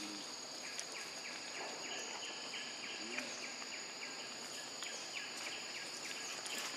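Insects droning steadily in the forest, a high even buzz, with a quick series of short chirps about three a second that fades out a little after halfway.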